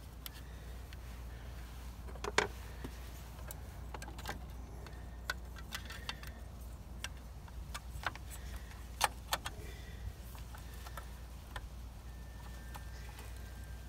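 Scattered sharp clicks and light knocks of an aftermarket 7-inch round LED halo headlight being worked into a Jeep Wrangler JK's headlight bucket as its tabs are lined up. The loudest knocks come about two and a half seconds in and around nine seconds, over a steady low rumble.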